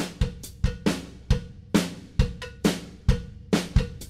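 Background music: a drum-driven track with a steady beat, kick and snare hits a little over twice a second.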